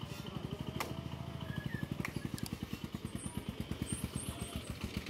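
A small engine idling close by with a rapid, even putter of about ten beats a second. Two sharp chops of a meat cleaver on a wooden block come about one and two seconds in.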